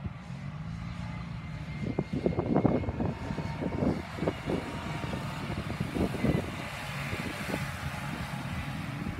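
Mini-bodied stock car's engine running as it drives round the oval on a slow lap, passing close by. It runs unevenly, louder in irregular surges in the middle.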